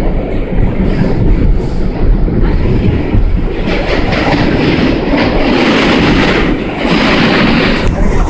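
Interior of a New York City Subway R62 car running through the tunnel: a loud, continuous noise of wheels on rails and car body rattle. It turns harsher and brighter from about three and a half seconds in until near the end.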